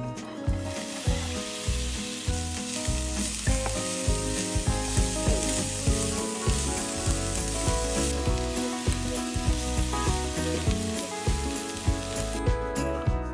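Diced onion sizzling as it hits hot vegetable oil in a nonstick frying pan, starting about half a second in, while a wooden spatula stirs it. The sizzle eases off toward the end, with background music underneath.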